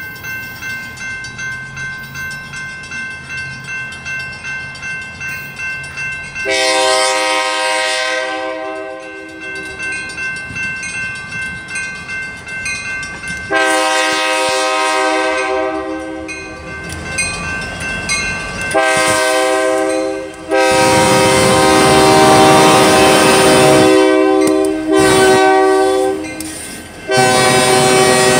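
Grade-crossing bell ringing rapidly, then a freight locomotive's multi-chime air horn sounding for the crossing in several long blasts, very loud. The last blasts come over the rumble and wheel noise of the train reaching the crossing.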